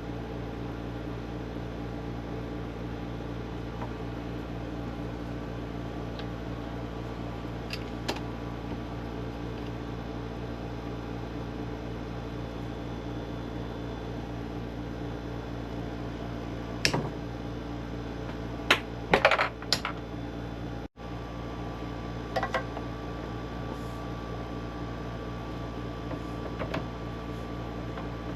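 Steady background hum with scattered sharp clicks and light knocks from handling plumbing parts and tools, a short cluster of them about two-thirds of the way through.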